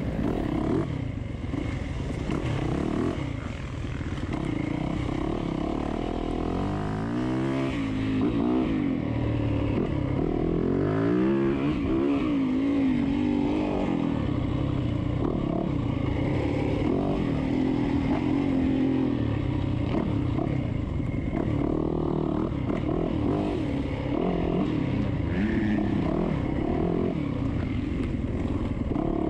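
Dirt bike engine under way, heard close up from the rider's onboard camera. About a third of the way in its pitch climbs several times in quick succession as the bike accelerates up through the gears, then it holds high revs.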